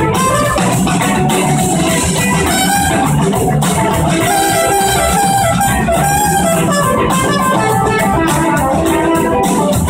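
Live band playing loud blues-rock: electric guitars over bass and a steady drum beat, recorded from the audience.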